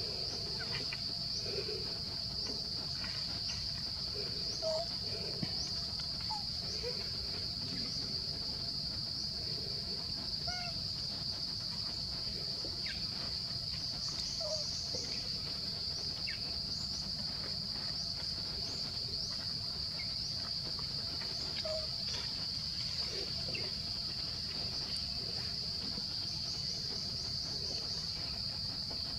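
Steady, high-pitched chorus of insects droning without a break, with a few faint short calls now and then.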